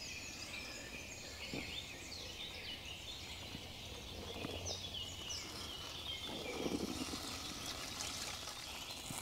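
Several woodland songbirds singing. Near the end, coffee is poured from a moka pot into a mug.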